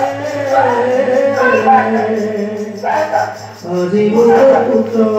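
Live music for an Assamese bhaona dance-drama: a voice singing a wavering chant over a steady low drone.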